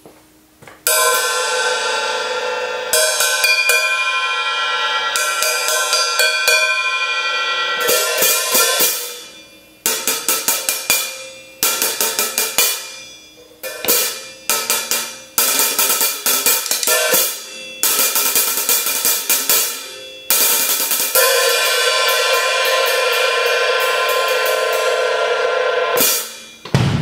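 Zildjian 14" A Custom Mastersound hi-hat cymbals played on their own: long ringing open-hat washes alternate with bursts of quick strokes that are cut short as the hats close.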